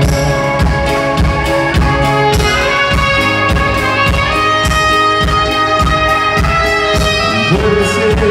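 Live rock band playing an instrumental break with a steady drum beat, bass and acoustic guitar, while a horn holds long lead notes over them.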